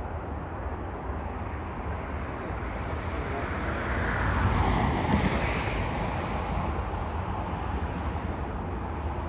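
A vehicle passing on the road, its tyre and engine noise swelling to a peak about five seconds in and then fading, over a steady low rumble of wind on the microphone.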